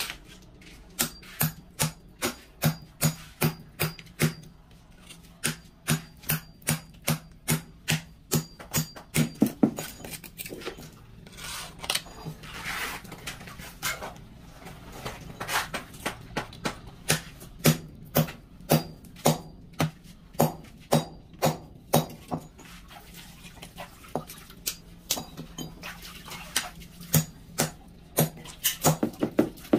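Repeated sharp knocks of a mallet tapping ceramic floor tiles down into their mortar bed, about one to two taps a second in runs with short pauses.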